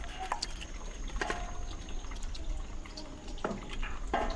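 Light water sounds, dripping and small splashes, with scattered small clicks and knocks.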